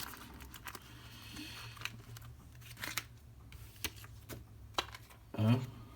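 Cardboard box and plastic packaging of a trading-card set being handled: light crinkling and rustling with scattered clicks and taps, over a steady low hum.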